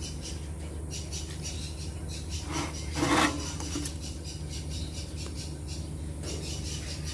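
Birds calling: a rapid run of short, high chirps repeating over a steady low hum, with one louder harsh, rasping call about three seconds in.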